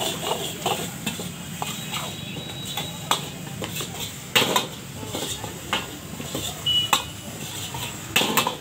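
Metal ladle scraping and knocking against a large iron kadhai as egg noodles are stir-fried, with sharp clanks at irregular intervals, several in the second half.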